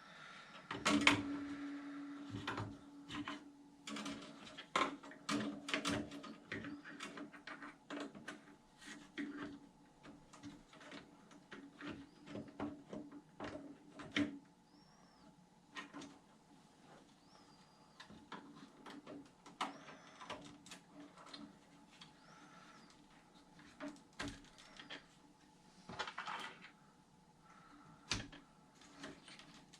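Irregular clicks, taps and knocks of small plastic and metal parts and tools being handled while an RC truck's front bearing carriers are fitted.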